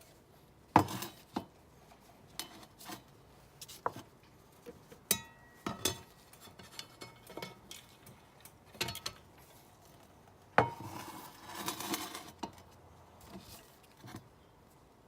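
Metal frying pan and handle being handled: irregular clinks and knocks, one leaving a short ringing tone about five seconds in, and a scraping rustle at about eleven seconds.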